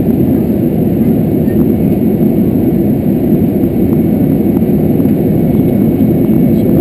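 Steady low rumble of a small aircraft's engines at taxi power, heard from inside the cockpit as the plane rolls slowly toward its parking spot.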